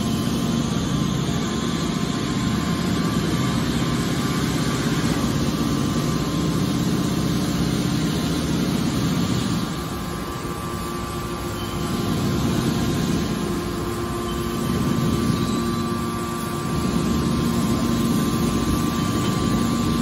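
Hydraulic scrap metal baler running through a baling cycle. Its hydraulic pump and motor give a steady hum with a faint whine, easing briefly about ten seconds in and again near sixteen seconds as the rams change stroke to open the door and push out the bale.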